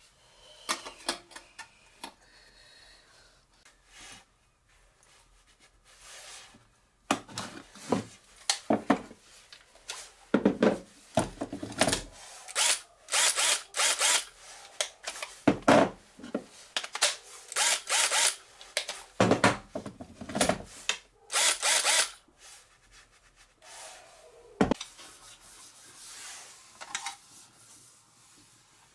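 Cordless drill and its slide-on battery pack being handled: a run of short scraping, rubbing and clicking noises, thickest through the middle stretch and sparser near the end.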